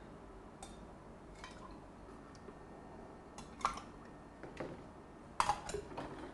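A few light, sharp clinks of glassware and bar tools, irregularly spaced, with a quick cluster near the end.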